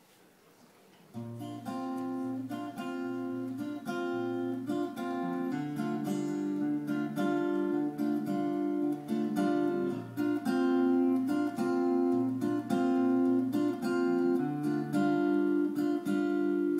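Acoustic guitar strumming a steady rhythm on a two-chord progression as a song's instrumental intro, starting about a second in after a brief silence.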